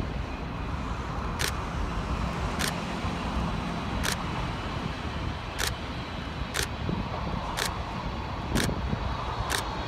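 Steady freeway traffic noise with the rumble of a Boeing 777-300ER's GE90 engines on final approach mixed in. A sharp high tick comes about once a second.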